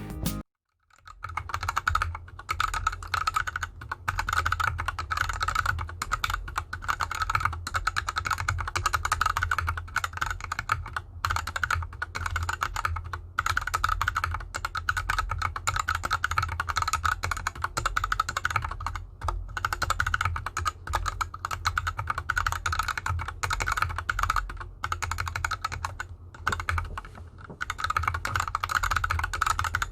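Fast, continuous typing on a GK64X 60% hot-swap mechanical keyboard with unlubed Gateron Yellow linear switches and DSA keycaps, the keyboard sitting on an artificial-grass mat. Rapid key strikes with short pauses start about a second in.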